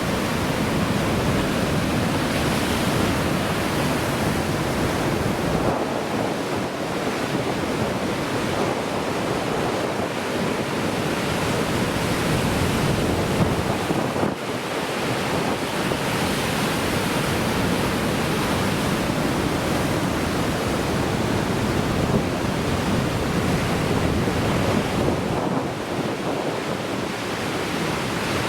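Heavy surf from a typhoon's swell: big waves breaking and washing in, a continuous rushing noise that swells and eases, with wind buffeting the microphone.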